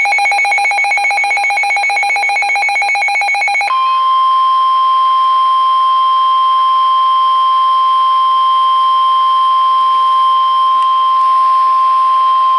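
A rapidly pulsing electronic alert, then about four seconds in a single steady tone takes over: the NOAA Weather Radio 1050 Hz warning alarm tone, held for about nine seconds and cut off sharply, announcing a severe thunderstorm warning.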